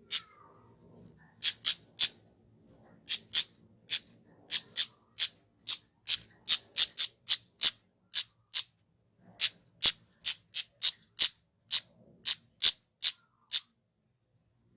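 A kemade, a small flowerpecker, calling in a fast series of short, sharp, high-pitched call notes, about two to three a second, in runs broken by brief pauses.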